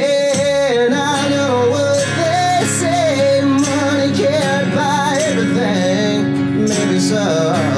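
Live solo acoustic guitar strummed steadily, with a singer's voice carrying a wavering melodic line over it.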